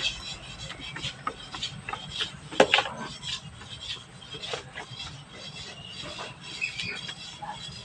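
Eating sounds: irregular clicks and taps of utensils and mouth noises as wild mushrooms are eaten, with one sharper click about two and a half seconds in.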